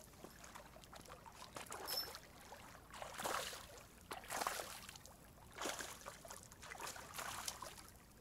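Small waves lapping and splashing against a rock shoreline, in soft swells about once a second.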